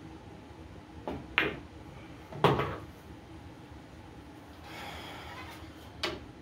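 Pool shot on a Brunswick Gold Crown III: the cue tip strikes the cue ball, and a moment later the cue ball clicks into the 8-ball. About a second later comes the loudest sound, a heavy thud with a short low rumble as the 8-ball drops into a pocket. A single sharp click near the end.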